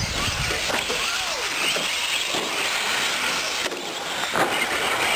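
Electric 1/10-scale 4WD short course RC trucks racing on a dirt track: their motors whine in short glides that rise and fall with the throttle, over a steady hiss.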